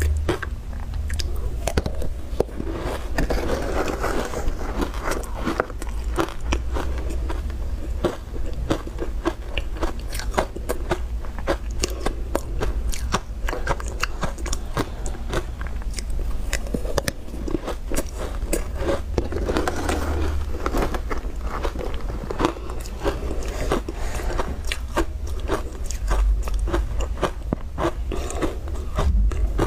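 Close-up crunching and chewing of soft ice dusted with milk powder: a dense, continuous run of crisp crunches as mouthful after mouthful is bitten through.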